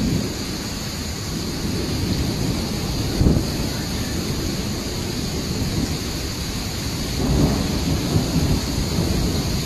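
Thunder rumbling over steady rain, the rumble swelling about three seconds in and again around seven to eight seconds in.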